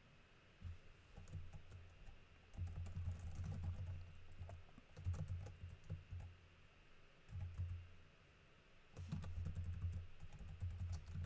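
Typing on a computer keyboard in short, irregular runs of keystrokes with pauses between them, quietest at the start and briefly around eight seconds in.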